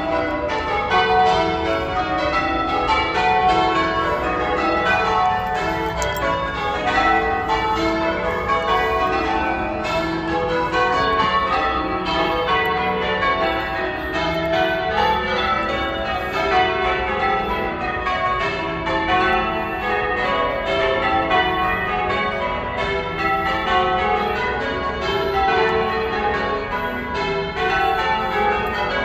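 Church bells change ringing: the bells are struck one after another in a steady, unbroken stream, each note still sounding as the next one strikes.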